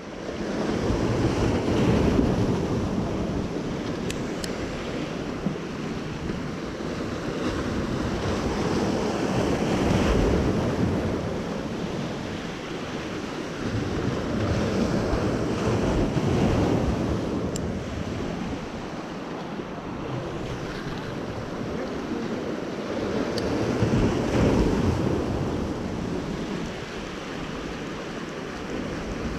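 Ocean surf breaking and washing over the boulders of a rock jetty, swelling and easing every several seconds, with wind buffeting the microphone.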